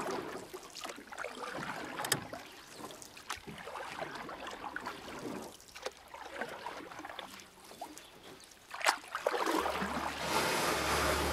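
A lifeboat being rowed: oars splashing and dripping in the water, with irregular knocks and clicks. A low steady hum comes in near the end.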